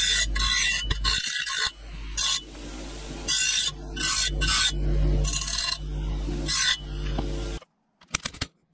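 Hand file rasping along the edge of a cut metal bracket in repeated strokes, about one a second, over a low steady hum. The filing stops about seven and a half seconds in, leaving only a few faint clicks.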